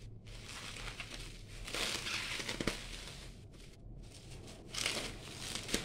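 Bubble wrap crinkling and rustling as it is pulled off and crumpled by hand, with louder stretches about two seconds in and near the end and a few sharp crackles.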